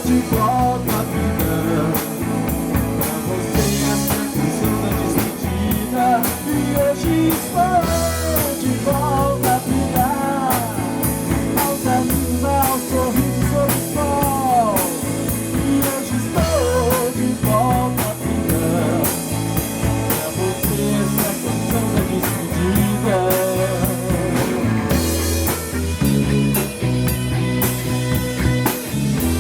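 Rock band playing an instrumental passage: a lead line of bending, sliding notes over a bass line and a steady drum beat.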